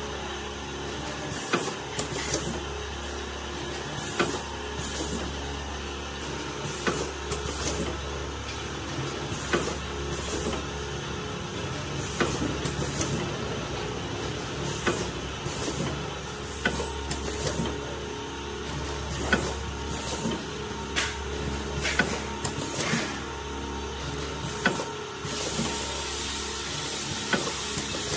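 Multi-lane vertical sachet packing machine running in a regular cycle: a steady motor hum with repeated clacks of the sealing and cutting jaws and short sharp hisses of air, about once a second.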